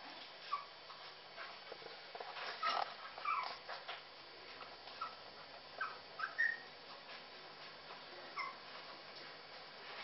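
Young puppies squeaking and whimpering in short, high calls scattered through, calling for their mother.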